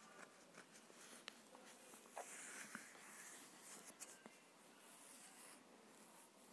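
Faint scratching and small ticks of metal tweezers working against a mobile phone's circuit board, over low room tone.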